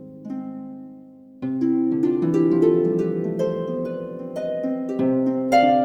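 Background music: a gentle melody of plucked string notes. It fades almost away about a second in, then picks up again with a fuller run of notes.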